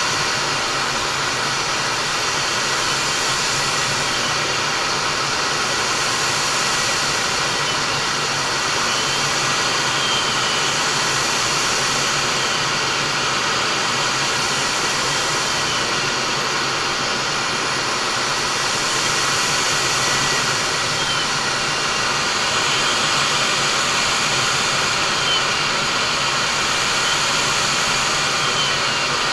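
Steady cockpit noise of a MiG-29 fighter in flight: its twin RD-33 turbofan engines and rushing air, heard inside the canopy as an even noise with a thin, steady high whine.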